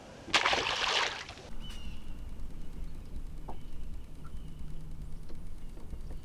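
A released bass hits the lake with a splash about half a second in, lasting about a second. Then a low, steady rumble.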